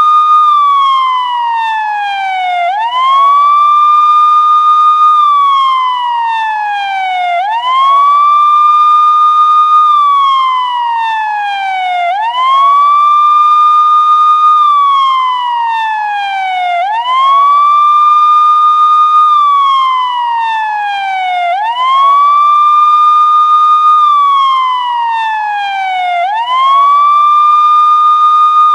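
Police siren sounding a slow wail. Each cycle rises quickly to a high tone, holds it for about two seconds, then slides steadily down before rising again, about every four and a half seconds, six times over.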